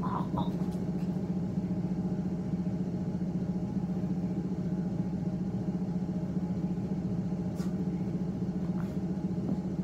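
A steady low mechanical hum, constant in pitch and level, with a couple of faint ticks near the end.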